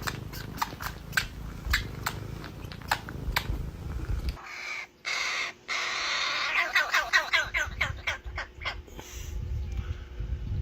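A bird calling harshly in quick repeated runs, in the second half. Before that comes a series of sharp clicks, about two a second, over a low rumble.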